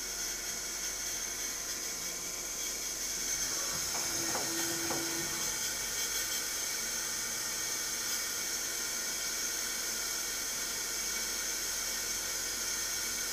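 Manurhin KMX 326 Swiss-type CNC lathe running, a steady high-pitched hiss, with a few clicks and a short low hum lasting about a second, roughly four seconds in.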